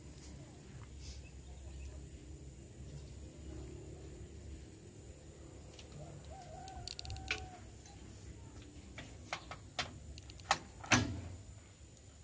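A few sharp metallic clicks and knocks from hands working at the shredder's small stationary engine before it is started, the loudest a single thump near the end; the engine is not yet running. A chicken calls briefly about halfway through.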